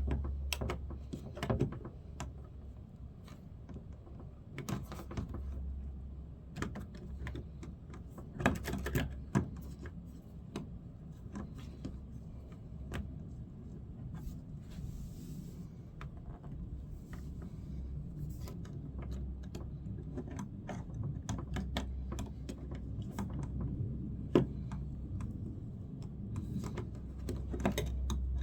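Irregular clicking and tapping of hand tools and small metal parts being handled while a car mirror is fitted, with a low hum that comes and goes.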